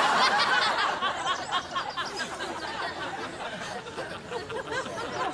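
Audience laughing, many voices together, loudest at first and then easing off.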